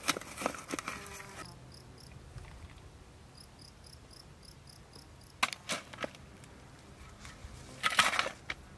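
Hoe blade chopping into soil: a few strikes at the start, two more past the middle and a quick cluster near the end. In the quiet stretch between them, faint high chirps repeat at about four a second.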